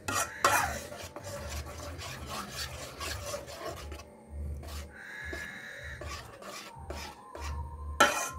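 A spatula scraping and stirring thick cornflour halwa in a nonstick pan, a rasping rub with a stroke about every second as the ghee-laden mixture thickens. A sharp clack near the end.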